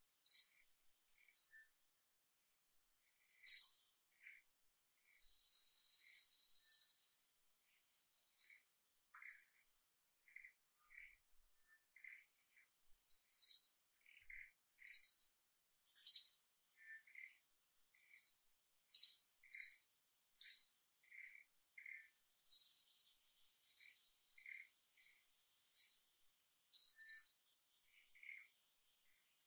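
Small birds chirping in short, separate high calls every second or so, at two different pitches, over a faint steady high-pitched tone.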